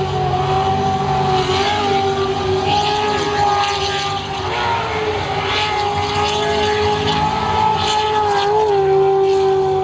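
Jet sprint boat's engine running at high revs as the boat speeds through the channel course, holding a steady high pitch that wavers briefly a few times, over a hiss.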